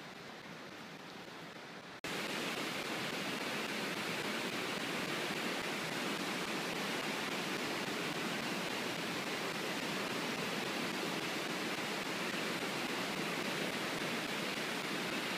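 Rhine floodwater rushing through the open gates of a river dam, a steady, even rush of churning water. About two seconds in, a sudden cut makes the rush louder and brighter.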